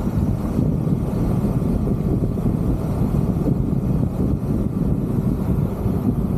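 Steady wind noise on a roof-mounted camera's microphone, mixed with the road noise of a vehicle driving along a dirt road.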